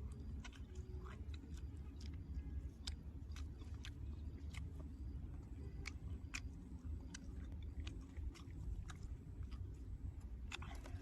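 A person chewing food, with many small wet mouth clicks and smacks at an uneven pace, over a steady low hum.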